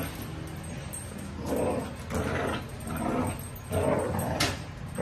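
Pit bull growling in short bursts, several in a row, while it tugs and shakes a cloth in its teeth during play.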